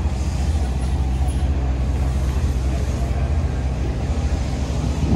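An engine running at a steady idle: a loud, even, low rumble with no revving.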